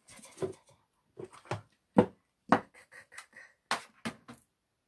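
Irregular sharp clicks and knocks, about a dozen, with a few duller thumps: equipment being handled close to the microphone while a lamp that has switched off is dealt with. The loudest knock comes about two seconds in.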